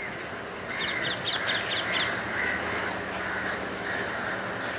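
Crows cawing repeatedly, with a quick run of about eight high chirps about a second in, over a steady low hum.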